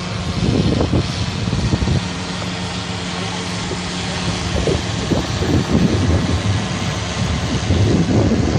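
An engine running steadily at an even pitch, a low hum with no revving.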